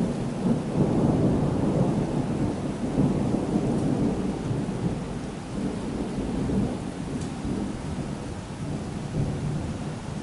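Rolling thunder rumbling, swelling about a second in and strongest over the next couple of seconds, then slowly dying away, with rain falling throughout.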